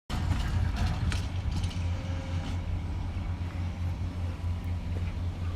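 Excavator's diesel engine running with a steady low rumble, with a few light knocks about a second in.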